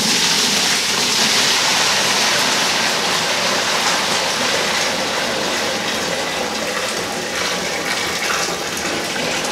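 Hot brewing water at about 180°F gushing in a steady, heavy pour from a tipped stainless-steel kettle into the mash tun, filling it for the mash. The pour starts suddenly and runs on without a break.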